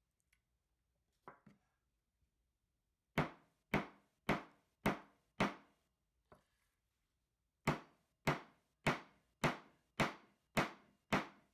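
Small hammer striking a rivet setter to set a double-cap rivet through a leather strap on a wooden board: five sharp blows about half a second apart, a short pause, then eight more.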